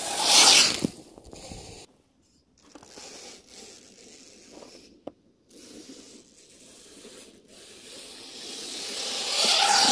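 An electric RC buggy (HBX Bonzer) drives through snow, its tyres churning and spraying snow with a rushing noise. The noise is loudest about half a second in, turns patchy and quieter, then builds again to a second loud peak near the end.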